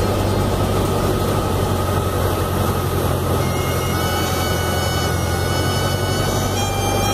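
Light high-wing aircraft's piston engine running at a steady drone, under a rough rumbling noise as the plane moves fast over a grass airstrip.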